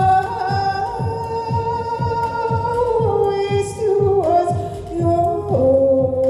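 Layered, held female vocal tones processed through live electronics, gliding and stepping down in pitch about four seconds in and again near the end, over a low electronic pulse that drops in pitch about twice a second.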